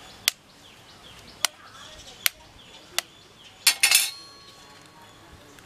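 Knife blade tapped against a chicken eggshell to crack it, four single sharp taps about a second apart, then a quick run of louder clinks with a short ring near the end.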